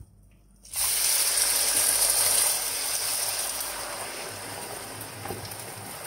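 Minced boiled honey mushrooms dropped into hot oil in a frying pan: a sudden loud sizzle about a second in that slowly dies down. A couple of light knocks near the end as the spoon pushes the rest out of the bowl.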